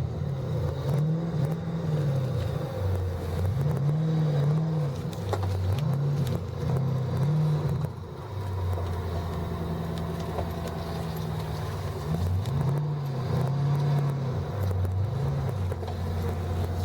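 Supercharged Ford 5.4-litre V8 from an SVT Lightning pulling hard through the gears. The engine note rises and drops several times in the first half, runs steadier for a few seconds in the middle, then rises and falls a few more times near the end.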